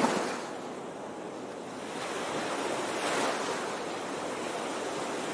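Sea surf breaking and washing up on a sandy shore, swelling twice.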